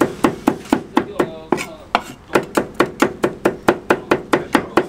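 Two cleavers chopping green chili peppers on a round wooden chopping block: a fast, even run of sharp strikes, about four or five a second, with a short break a little after the first second.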